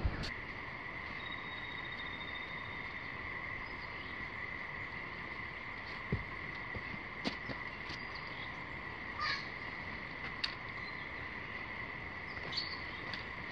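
Steady chorus of calling insects, a continuous high drone, with a few short clicks and knocks scattered through it.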